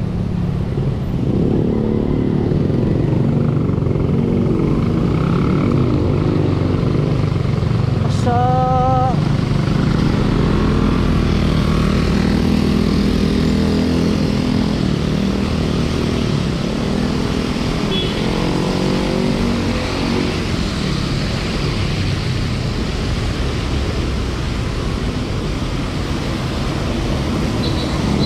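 Traffic on a wet city street heard from a bicycle: car and motorcycle engines running close by, with a brief wavering pitched tone about eight seconds in.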